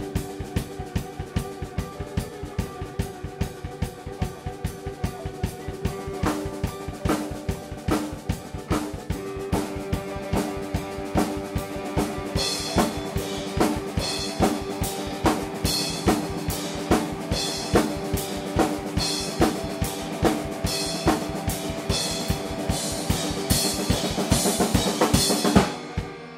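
Live instrumental jam: a drum kit keeps a steady, fast beat under sustained guitar and keyboard notes. Cymbal hits join about halfway, and the drums stop just before the end.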